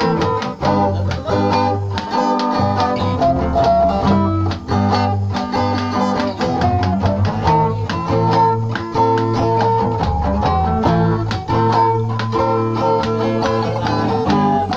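Guitars playing an acoustic jam together: quick picked notes and strummed chords over a steady low bass line.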